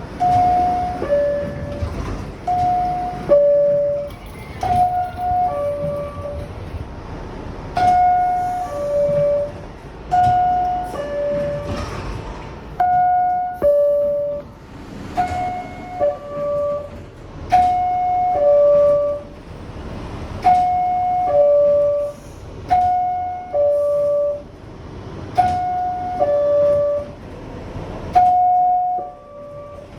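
Subway car door chime: a high-pitched two-note descending ding-dong, repeated about a dozen times every two to three seconds, with train rumble and clicks underneath.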